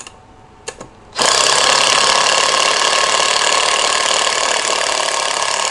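14.4 V cordless screwdriver drill driving a long screw: a couple of short clicks, then the motor starts about a second in and runs steadily under load for about four and a half seconds before stopping.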